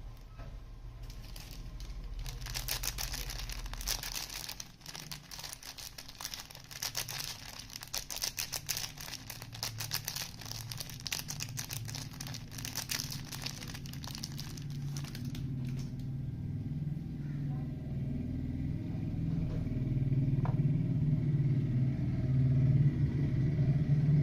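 Soap packaging crinkling and rustling as it is unwrapped by hand, a dense run of fine crackles for about thirteen seconds. The crackling stops fairly suddenly, and a low, uneven rumble of handling grows louder toward the end.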